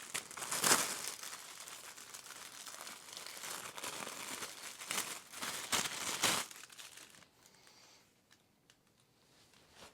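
Packaging crinkling and tearing as a new multi-rib dryer belt is unwrapped, with several louder rips and crackles, dying down about seven seconds in.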